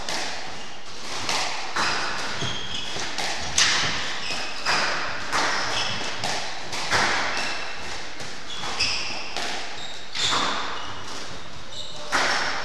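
Squash rally: a string of sharp hits, about one every half-second to second, as rackets strike the ball and the ball smacks the walls. Short high squeaks from players' shoes on the wooden court floor run between the hits.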